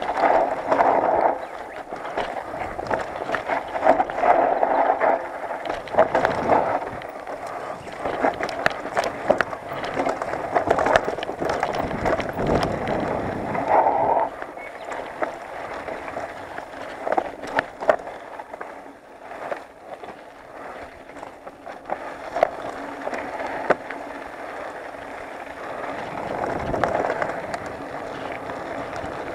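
Mountain bike rolling fast down a dry dirt and stone trail: tyres crunching over loose ground, with frequent knocks and rattles from the bike as it hits bumps.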